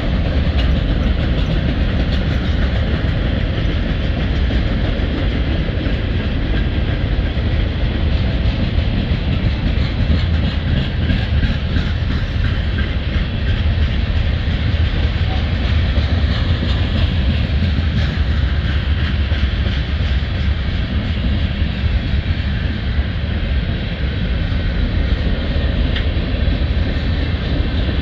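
Freight train cars (boxcars, tank cars and covered hoppers) rolling past close by: a steady, heavy rumble of steel wheels on the rails.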